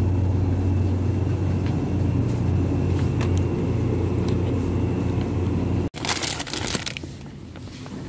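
Metal shopping cart rolling over a tiled floor, a loud steady low rumble. About six seconds in it stops abruptly and a plastic cereal bag crinkles in the hand.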